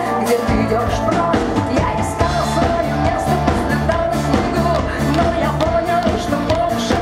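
Live rock band playing with electric guitar, acoustic guitar, bass guitar and drum kit, at a steady beat.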